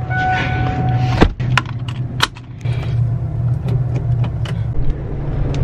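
Ford E-series motorhome engine idling with a steady low hum. Several sharp clicks and knocks sound over it, the loudest just over a second in. A steady high tone stops at about the same moment.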